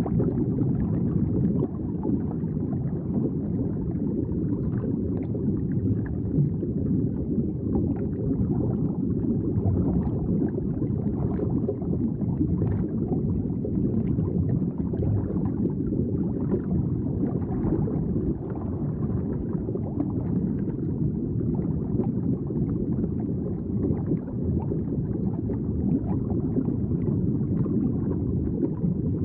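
Aquarium water bubbling and gurgling steadily, a low, muffled churning with small pops scattered through it.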